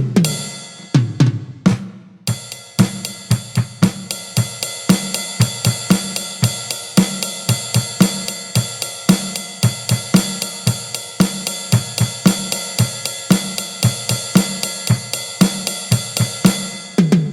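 Millenium MPS-150 electronic drum kit played on a preset kit sound and heard straight from the module, with no pad noise. It opens with a tom fill, settles into a steady beat of kick and snare under a constant cymbal wash, and ends with another tom fill.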